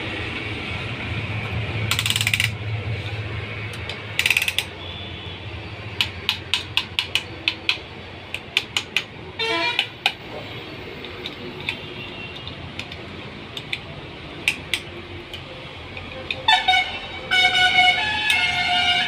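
Ratcheting piston ring compressor being tightened around a piston to squeeze its rings for fitting into the bore, clicking in quick runs of sharp ratchet clicks. Background music comes in near the end.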